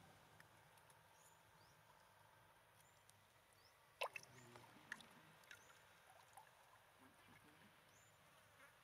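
Quiet outdoor ambience with faint, short high chirps, then about four seconds in a single sharp splash as a young monkey hauls itself out of shallow water. A few smaller splashes and knocks follow over the next two seconds.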